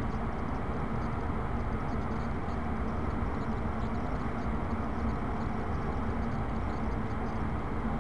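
Steady low rumbling background noise with a faint constant hum, unchanging throughout.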